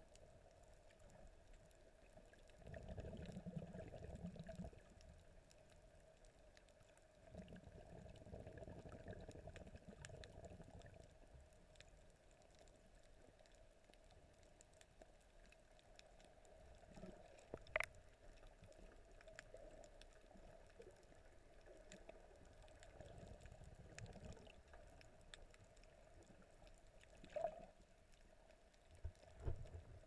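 Faint, muffled underwater water sound picked up by a submerged camera, with a few low swells of water noise lasting a couple of seconds each and one sharp click a little past halfway.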